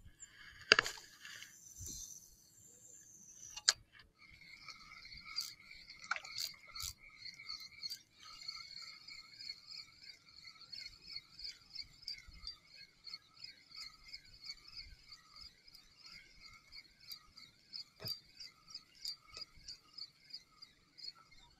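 Spinning reel on a fishing cast and retrieve: a swish and the hiss of line running off the spool, a sharp click near four seconds, then the reel winding steadily with a rhythmic whir at each turn of the handle, two to three times a second.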